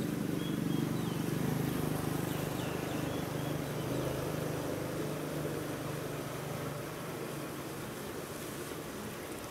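A small motor running with a steady low drone whose pitch wavers slightly, with a few faint high chirps over it early on.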